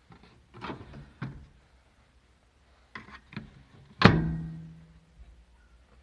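Microwave oven door being worked by hand: a few clicks and knocks from the latch and door, then the door shut with a loud thunk about four seconds in that leaves the oven's metal case ringing low for about a second.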